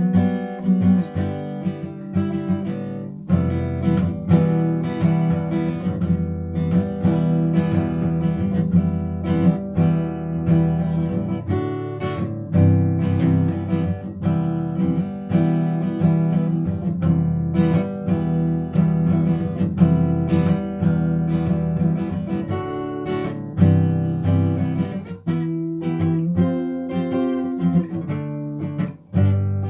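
Acoustic guitar music: plucked and strummed chords played continuously, with frequent note attacks.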